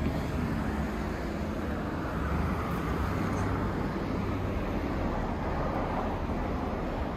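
Steady street traffic noise, a low rumble with no distinct events.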